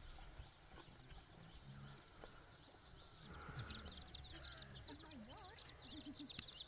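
Faint, rapid, high-pitched bird chirping, denser from about halfway through, over quiet rural background.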